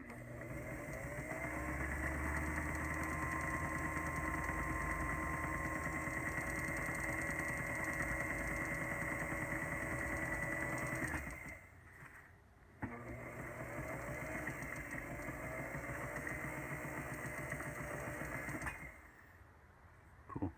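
Small electric motor of a rod lathe spinning a fishing rod with a steady whine, running for about eleven seconds, stopping briefly, then running again for about six seconds.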